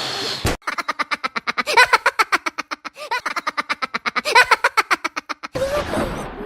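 Edited cartoon sound effect: after a brief hiss and a click, a rapid stutter of short pitched pulses, about ten a second, runs for about five seconds. It ends in a noisy whoosh with a falling tone near the end.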